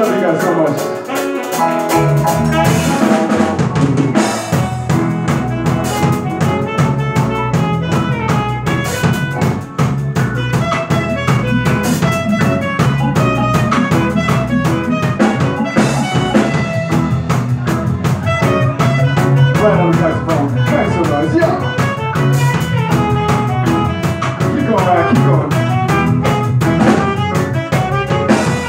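Live band playing: drum kit, saxophone, electric guitar and bass guitar together, with a busy drum beat under the melody.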